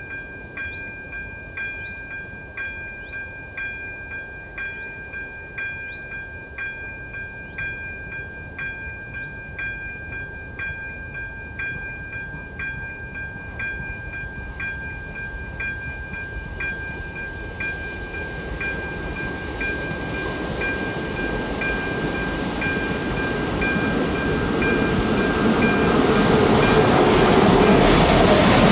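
Level-crossing electronic warning bell (AŽD ZV-02 e-bell) ringing in an even run of two-tone strikes. From about two-thirds of the way through, a ČD class 814 RegioNova diesel railcar set approaches, growing steadily louder and drowning out the bell as it runs through the crossing at the end.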